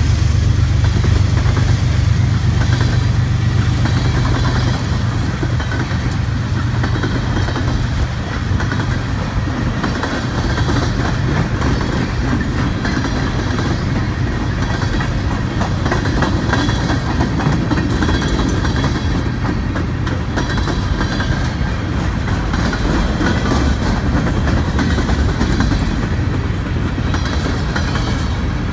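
Freight train of open-top hopper cars rolling past close by: a steady low rumble of steel wheels on rail with a running clickety-clack over the rail joints. The rumble is heaviest in the first few seconds, then eases slightly.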